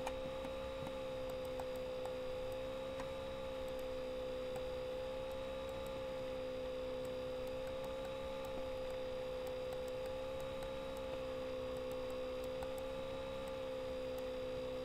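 Steady electrical hum, a single mid-pitched tone with a slight waver, with a few faint ticks scattered through it.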